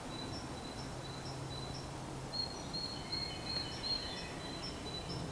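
Birds chirping: one short high call repeated about twice a second, with other, more varied chirps joining in the middle, over faint outdoor background noise.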